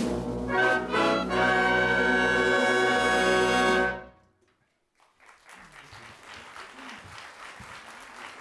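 Wind band with a strong brass section holding a loud final chord that cuts off about four seconds in. After a moment of silence, faint applause begins.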